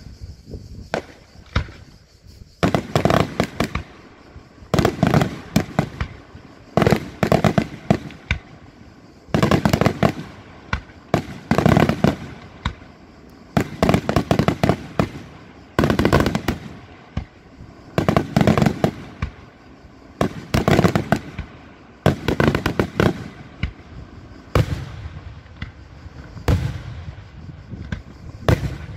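Daytime aerial firework shells bursting overhead, each breaking into a rapid cluster of sharp bangs and crackles. A new volley comes every second or two.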